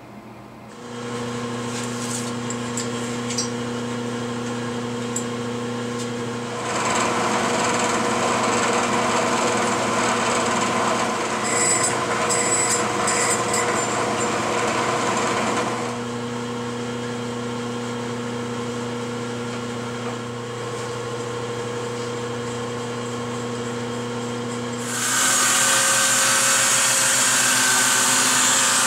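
Drill press motor running, then drilling the mounting hole through a 6061 aluminum wind chime tube: a louder, rougher cutting noise for about nine seconds before the motor runs on alone. About 25 seconds in, an electric palm sander starts on the tube, a louder, higher hiss.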